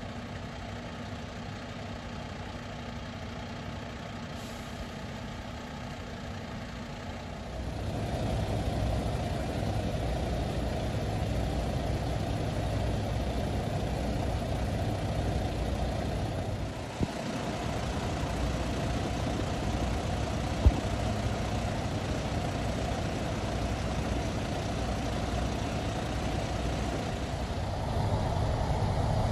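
Fire engines idling, a steady low engine sound that grows louder about eight seconds in, with one sharp click about twenty seconds in.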